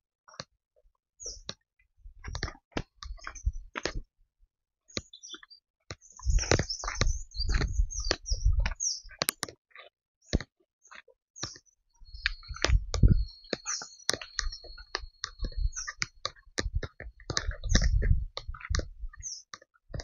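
Footsteps on a dry forest dirt path strewn with leaves and twigs: irregular scuffs and clicks in spells, some with low thuds. Short bird chirps come and go above them, with a thin steady high tone for about two seconds past the middle.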